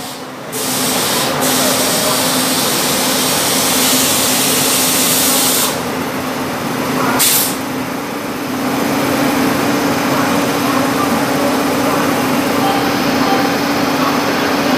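Railway station platform noise beside a standing train: a loud, steady hiss with a low steady hum underneath, the hum growing stronger in the second half.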